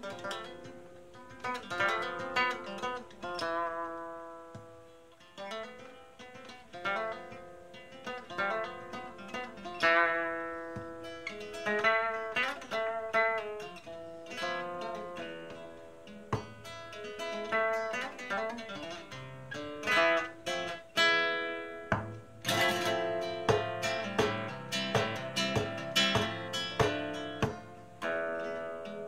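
Solo nylon-string guitar playing a flamenco soleá: plucked single-note phrases and arpeggios, turning to louder strummed chords about three-quarters of the way in.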